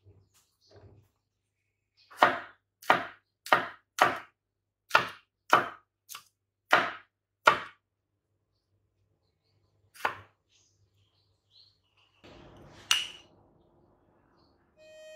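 Kitchen knife slicing garlic cloves on a wooden cutting board: a run of about nine sharp knocks of the blade striking the board, a little over one a second, then one more knock a couple of seconds later. Near the end, a short stretch of soft noise with a single sharp clack.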